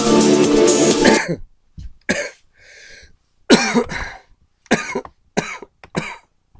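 Electronic dance music that cuts off abruptly about a second in, followed by a man's short coughs and throat-clearing, several separate bursts with quiet gaps between them.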